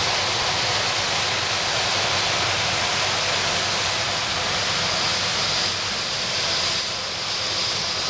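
John Deere combine harvester and tractor working side by side in a corn field, heard from outside as a steady, even roar with no distinct knocks or changes.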